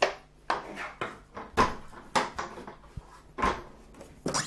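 Irregular knocks and clunks, about half a dozen, of the phaco machine's plastic housing and locking catch being handled as the catch is pulled and turned to release the top section from the base.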